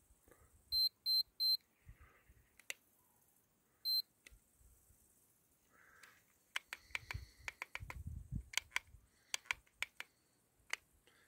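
Short high electronic beeps from a handheld digital wristwatch as its buttons are pressed: three quick beeps about a second in and one more near four seconds. Then a run of light clicks and handling noise.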